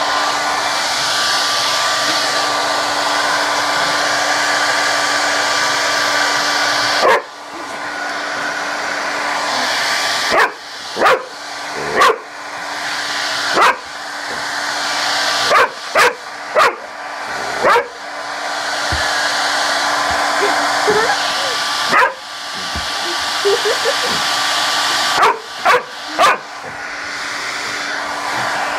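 Handheld hair dryer running steadily, while a dog barks sharply at it in single barks and quick pairs, about a dozen times from partway in.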